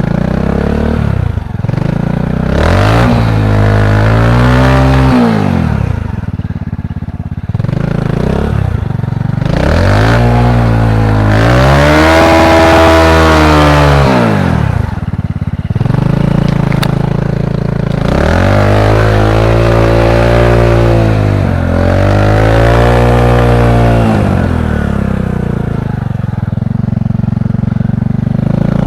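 Single-cylinder Honda Supra X 125 (KPH) motorcycle engine on a homemade trail bike, revving up and dropping back about four times, its pitch climbing and falling with each throttle opening.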